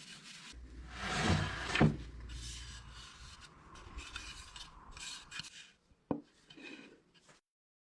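Wood being rubbed and scraped by hand in uneven strokes, loudest about a second or two in, with one sharp knock near the end before it cuts off.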